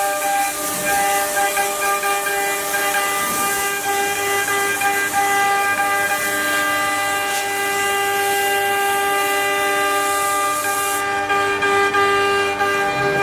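High-speed CNC router spindle running steadily, a high whine with many overtones. A loud hiss rides over it and cuts off suddenly near the end.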